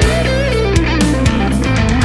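Rock music: an electric guitar plays a lead line that slides downward and then wavers with wide vibrato near the end, over sustained bass notes and drum hits.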